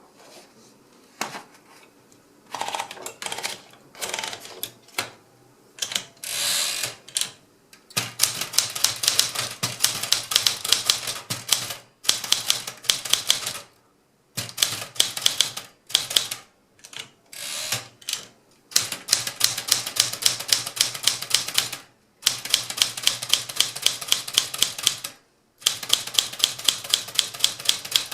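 Smith Corona Galaxie Twelve manual typewriter in use: a few scattered clacks at first, then rapid typing in runs of fast, even keystrikes a few seconds long, broken by short pauses.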